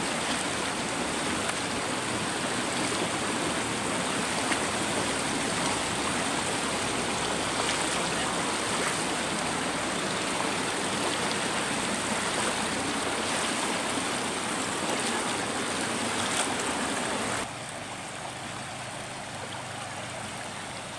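A shallow river running steadily over rocks, a constant rushing of water. About seventeen seconds in it drops suddenly to a quieter level.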